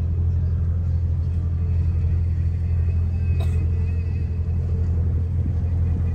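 Excursion boat's engine droning steadily at a constant pitch, with a single sharp click about three and a half seconds in.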